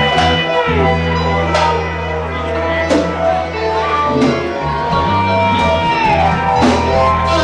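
Live rock band playing loudly: electric guitars holding long notes that bend in pitch, a steady bass line underneath, and a drum kit with cymbal crashes every second or so.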